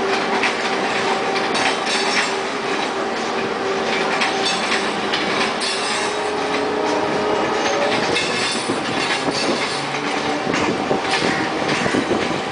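Mumbai suburban electric multiple unit local train running, heard from on board: the wheels clatter irregularly over rail joints and points. A steady whining tone fades out about halfway through.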